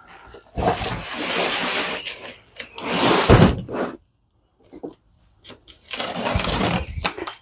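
A large cardboard box being handled and set down on a plastic folding table, scraping and rustling, with a heavy thump about three seconds in as it lands. Near the end, more scraping of cardboard as a knife is worked along the box's edge.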